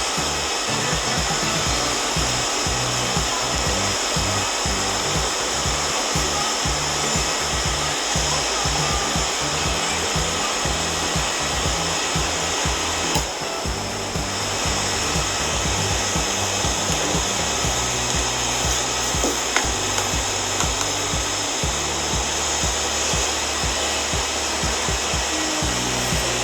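A steady, loud rush of air from a blower, such as a repair bench's hot air or fan unit, with a brief dip about halfway through. Background music with a bass line plays underneath.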